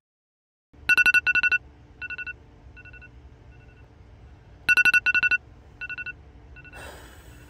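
Phone alarm ringtone going off: a quick run of high electronic beeps, then fainter, sparser repeats. The pattern comes round again about four seconds later.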